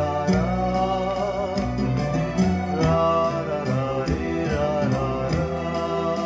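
Electronic keyboard playing an instrumental introduction: a melody with gliding, bending notes over steady low bass notes and a light beat.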